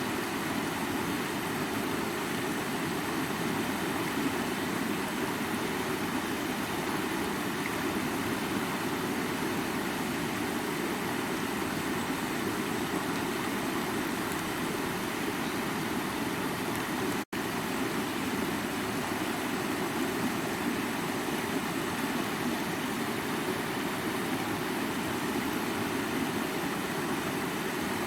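Stream water rushing over rocks, a steady, even rush weighted toward the low-middle range. It drops out for an instant about two-thirds of the way through.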